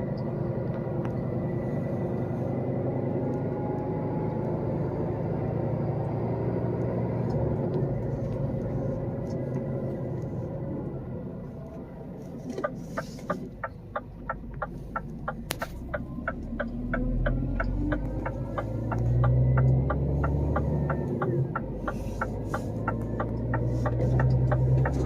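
A truck's diesel engine running steadily. About halfway through, a fast, regular ticking starts, about four ticks a second, and the engine's low rumble grows louder.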